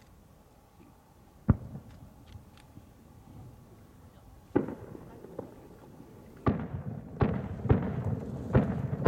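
Aerial firework shells bursting. There is a single sharp bang about a second and a half in, another at about four and a half seconds, then four more in quicker succession from about six and a half seconds. Each bang is followed by a long echo.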